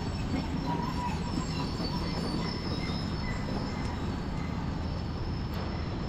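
Steady road noise from riding along a wet road: a constant low rumble and hiss of tyres and wind.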